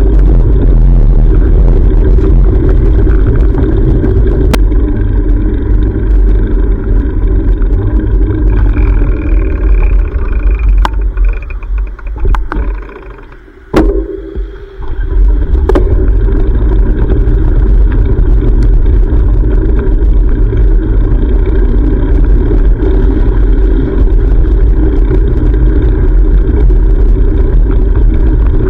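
Loud, steady wind rumble on a bicycle-mounted action camera while riding, which drops away for a few seconds about halfway through, as when the bike slows, before returning. Just before the lull comes a short run of fast ticking, then a single sharp click.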